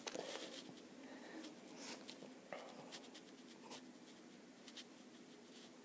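Near silence with faint, scattered rustling and small scratchy clicks, like fur or fabric brushing close to the microphone.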